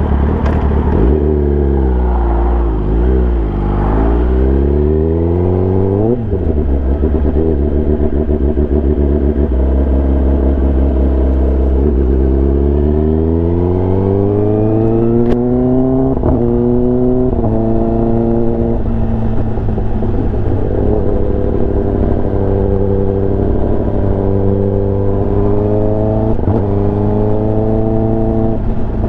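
Kawasaki ZX-10R's inline-four engine running through an SC-Project aftermarket exhaust while riding: the revs dip and rise in the first few seconds, hold low, then climb from about halfway with quick upshifts before settling into a steady cruise.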